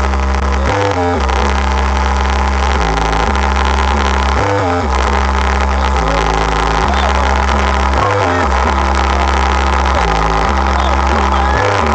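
Bass-heavy music played loud through a car sound system with a Spyder Pile Driver subwoofer. A deep bass line holds low notes for a second or two at a time and steps between pitches, with dense mids and treble on top.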